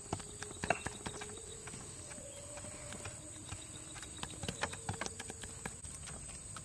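Bamboo skewer knocking on a wooden chopping block as it is jabbed through raw chicken drumsticks: irregular light taps, several a second, loudest near the start, over a steady high-pitched whine.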